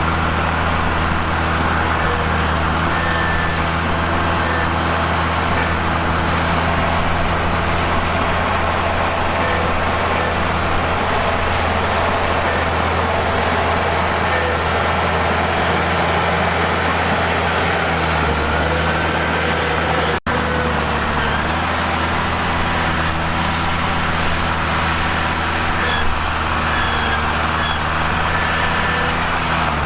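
Diesel engine of a Mitsubishi crawler bulldozer running steadily at working speed while pushing rock, with the noise of the machine working over it. The sound cuts out for an instant about two-thirds of the way through, then carries on.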